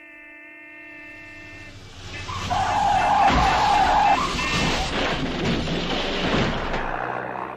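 Radio-play sound effects of a car crash, played loud. A steady blaring tone comes first, then a screech with a long stretch of crashing and clattering noise, loudest in the middle and slowly fading near the end.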